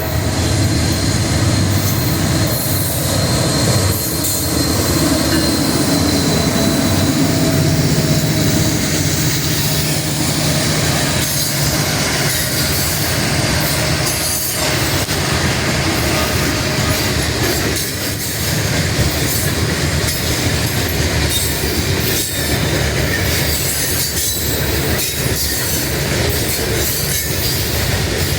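A train rolling past: a steady loud rumble of steel wheels on rail, with a thin high wheel squeal in the first few seconds and scattered knocks as the wheels cross rail joints.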